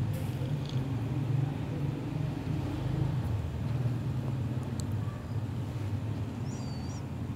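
Steady low background rumble, with a few faint clicks about the middle and a brief high chirp near the end.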